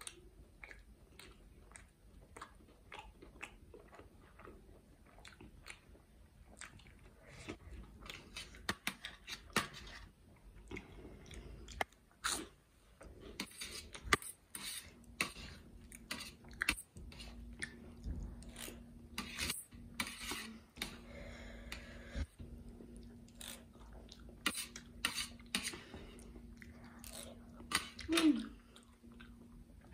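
Close-miked chewing of fried momos and spicy Maggi noodles: wet mouth sounds with many short, crisp crunches and clicks, busiest in the second half.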